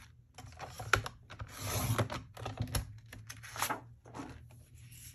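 Sliding paper trimmer cutting a strip of cardstock: a brief scraping rush as the cutting head runs along the rail about two seconds in, among sharp clicks and taps as the trimmer and cardstock are handled.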